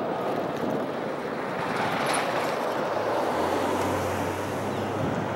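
Distant BNSF ES44AC diesel locomotive with a GE GEVO-12 engine working a loaded coal train upgrade; a low steady engine drone comes in about three and a half seconds in, under a steady rushing noise.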